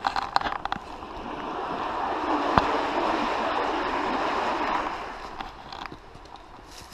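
Creek water rushing, swelling up and fading away again over a few seconds, with a few light clicks and one sharp click in the middle.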